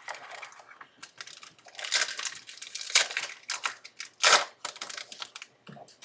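Football trading cards being handled and flipped through: a run of rustles, slides and light taps, loudest about two, three and four seconds in.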